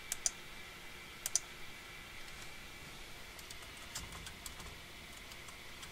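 Typing on a computer keyboard: two pairs of sharper clicks in the first second and a half, then a run of lighter keystrokes in the middle.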